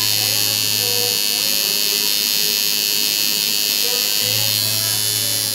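Tattoo machine buzzing steadily as the needle works ink into the skin. A low hum in the buzz drops out about a second in and comes back near the end.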